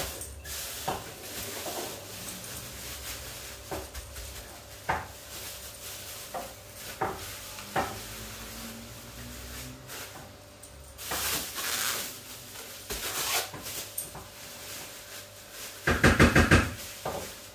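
Plastic bag rustling and crinkling as portions of soaked dried beans are packed and tied, with scattered light clinks against a metal colander. A loud, quick rattle comes near the end.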